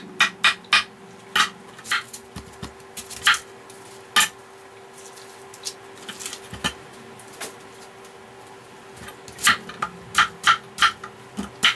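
Kitchen knife chopping on a wooden cutting board: a quick run of knocks through green bell pepper, a few scattered cuts, then another fast run near the end as a white onion is cut.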